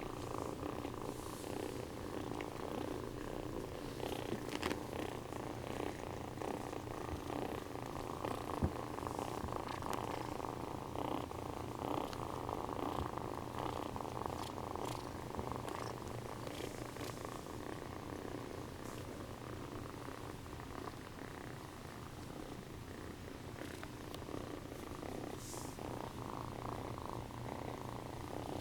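Domestic cat purring steadily, a continuous close-up rumble.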